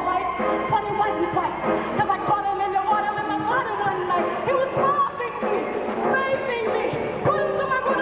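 Musical-theatre number: a singing voice over a live pit orchestra, with a steady rhythmic accompaniment and a singing line that bends in pitch.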